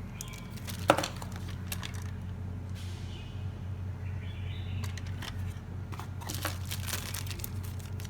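Small objects being handled: scattered light clicks and rustles, with one sharp click about a second in, over a steady low hum.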